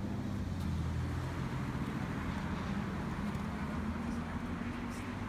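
Road traffic: a steady low hum of car engines.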